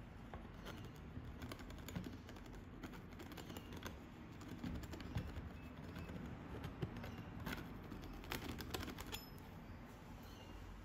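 Metal palette knife tapping and scraping oil paint onto a canvas: faint, irregular light taps and clicks, a few sharper ones standing out, over a low steady hum.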